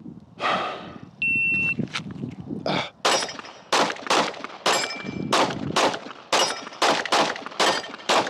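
Shot timer beep, then a fast string of about a dozen 9mm pistol shots from a Glock 45, unevenly spaced in singles and pairs over about five seconds as the shooter transitions between targets.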